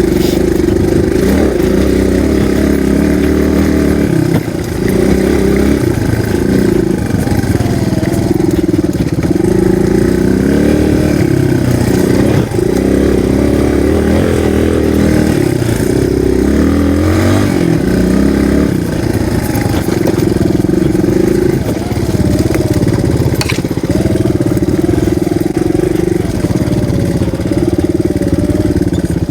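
Single-cylinder dual-sport motorcycle engine running under way at low trail speed. The revs rise and fall repeatedly with throttle changes, over a steady rush of wind and riding noise.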